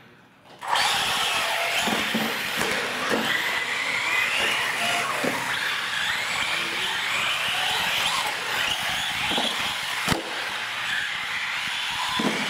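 Radio-controlled model trucks racing on a concrete floor: their motors start about a second in, then whine up and down in pitch as they speed up and slow down, with a sharp knock about ten seconds in.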